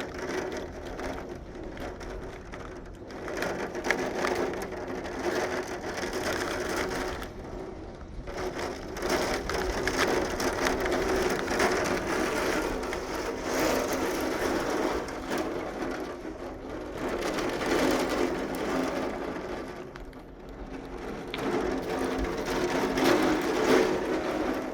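Heavy rain coming down, rising and falling in swells every several seconds.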